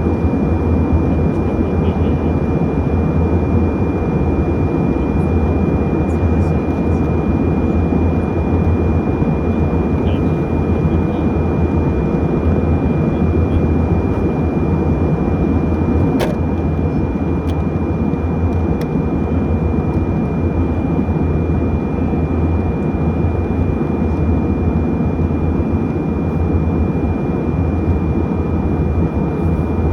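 Steady engine and airflow drone inside an airliner cabin in flight, with a deep hum underneath and a thin steady whine above it. A faint click sounds about halfway through.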